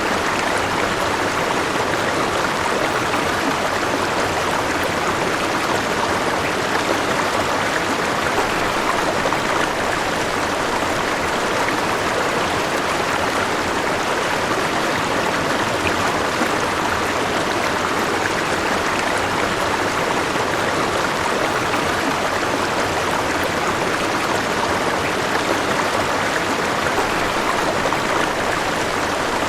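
River water flowing steadily, an even rushing and babbling with no change in level.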